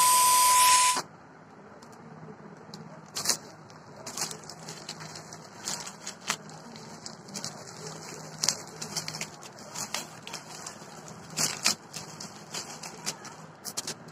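A burst of loud static hiss with a steady beep for about the first second, then plastic bubble-wrap packaging being crinkled and torn open by hand, in scattered crackles and rustles.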